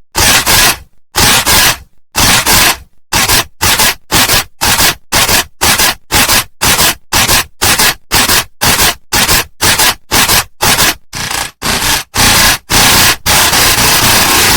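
A short, harsh, noisy sound clip repeated over and over and sped up step by step: the bursts come faster and shorter, about three a second at the middle, and blur into one continuous loud noise near the end.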